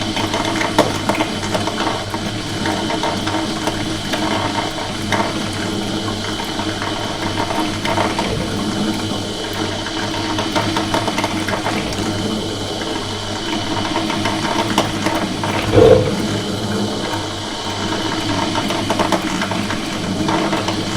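Coffee machine running with a steady mechanical hum and rattle, water moving through it. There is one short, louder burst about three-quarters of the way through.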